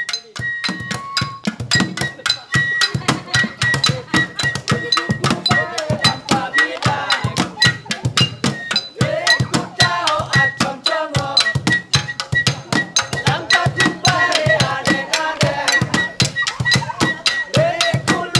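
Rhythmic percussion music: fast, dense clicking and knocking strikes with a repeated high ringing ping. From about five seconds in, voices sing over it.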